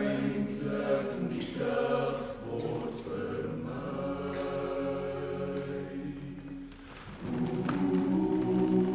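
Men's choir singing held chords, easing off about six and a half seconds in and coming back louder about a second later.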